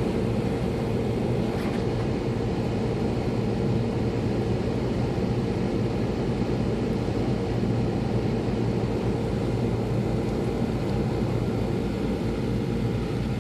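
Strong wind of a blowing winter snowstorm, a steady low rumble on the microphone with no letup.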